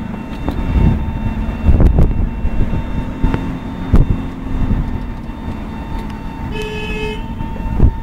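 Vehicle driving through traffic, heard from inside the cab: a steady low engine and road rumble with several knocks and bumps. About two-thirds of the way in comes a single short horn blast, a little over half a second long.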